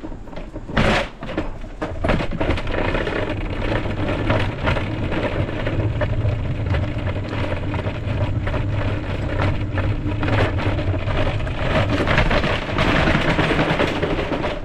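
Wooden cabinet and the loose boards stacked on it rattling and knocking as the load is rolled along an asphalt driveway, with a steady rolling rumble and a sharp knock about a second in.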